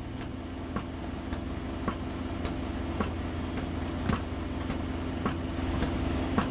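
A motor running steadily with a low hum, and a sharp tick repeating evenly, a little under twice a second.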